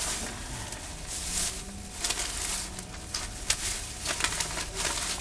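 Irregular clicks, knocks and rustling of camp gear and supplies being handled and moved about.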